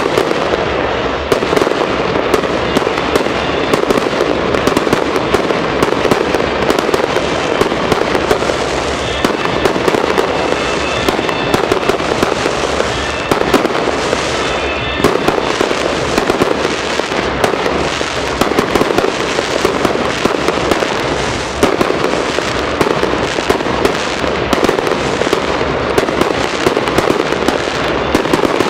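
Aerial fireworks display in a continuous barrage: a dense, unbroken run of bangs and crackles, many reports a second, steady and loud.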